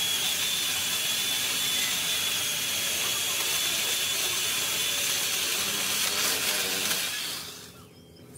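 Worx WG368E 40V cordless electric chainsaw running and cutting through a tree branch: a steady high whine over a hiss that stops near the end. The owner says its chain is no longer sharp.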